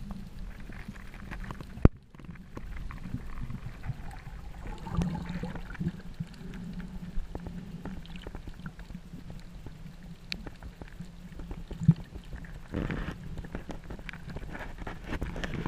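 Muffled underwater ambience picked up by a submerged camera: a low water rumble scattered with faint clicks and crackles. Two sharp knocks come about two seconds in and about twelve seconds in, and a brief rush of noise about thirteen seconds in.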